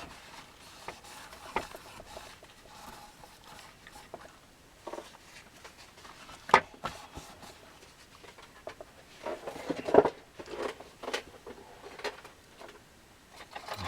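Small workbench handling noises while old heatsink grease is wiped off an electronics controller's heatsink: quiet rubbing and rustling with a few sharp clicks, one about halfway through and another a few seconds later.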